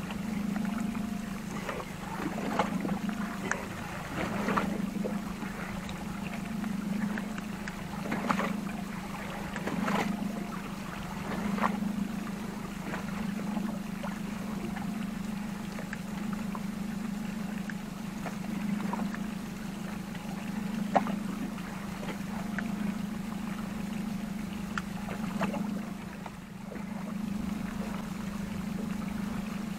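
Small boat drifting on the sea, water lapping at the hull with a low hum that swells every couple of seconds. Scattered knocks and clicks over it as the rod and reel are worked, one sharper knock past the middle.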